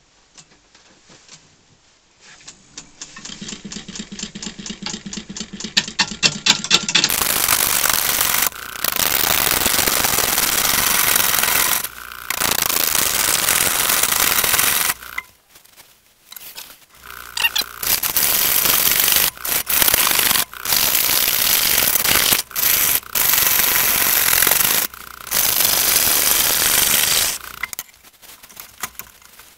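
A turning tool rough-cutting a large, irregular log of green wood spinning on a lathe. At first there is a fast tapping that grows quicker and louder as the tool meets the uneven surface, then loud, continuous cutting in long runs broken by short pauses as the tool lifts off the wood.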